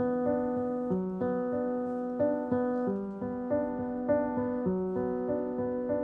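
Background piano music: a gentle, repeating pattern of sustained notes, a few notes a second.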